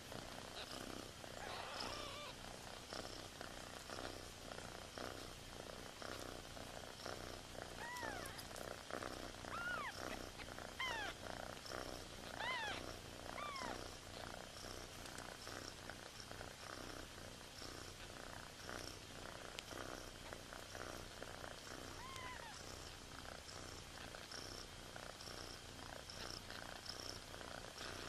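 Cat purring softly and steadily, with a run of short, high arched peeps from newborn kittens in the middle and one more near the end.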